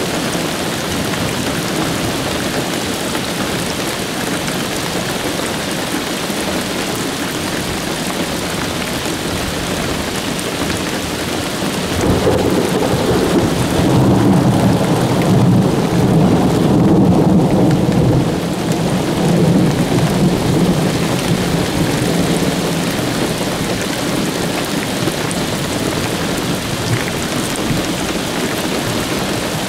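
Steady rain falling, with a roll of thunder that starts suddenly about twelve seconds in, rumbles for around ten seconds and fades away.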